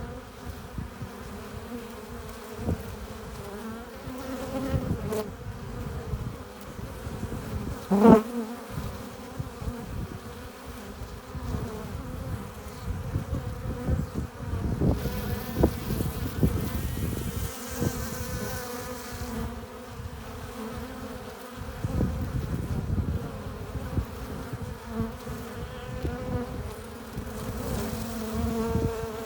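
Honeybees buzzing at a hive entrance: a constant hum of many bees, with single bees passing close now and then, the loudest about eight seconds in.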